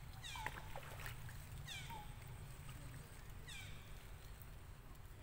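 An animal's high calls, each sliding down in pitch, repeated four times about two seconds apart, with short chirps in between.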